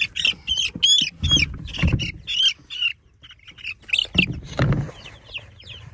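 Young chicks peeping rapidly in short, high chirps while one is picked up and carried, with low thumps and rumbles of handling about a second in and again about four seconds in.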